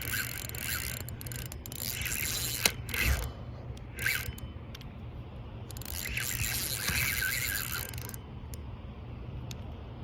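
Fishing reel ratcheting in bursts while a big river carp is fought on the line: a long run of clicking, a short burst, then another run.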